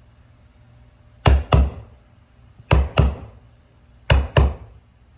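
Hammer tapping carpet down into the tack strip on a stair, in pairs of two quick knocks, three pairs about a second and a half apart.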